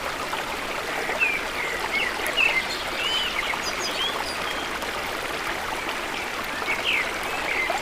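Water running in a stream, a steady rushing babble, with small birds chirping briefly now and then over it.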